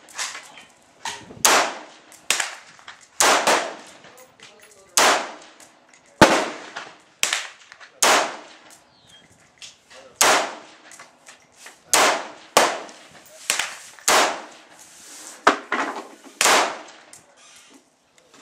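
Gunshots at a shooting range, fired in an irregular string of about one shot a second, each a sharp crack with a short echoing decay.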